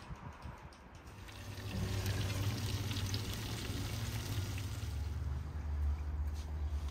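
Food sizzling as it fries in a pan, the hiss building about a second and a half in, over a low steady hum.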